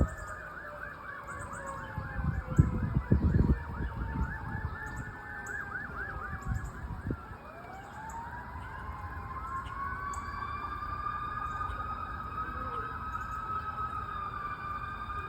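Fire engine sirens, several overlapping: fast yelping sweeps for the first few seconds, then a wail that rises about halfway through and holds high. Low rumbling bursts come through about three seconds in.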